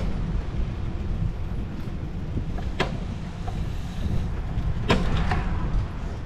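Riding a bicycle: a steady low rumble of wind on the microphone and tyres rolling on the path, with two sharp rattles of the bike, one about three seconds in and one near five seconds.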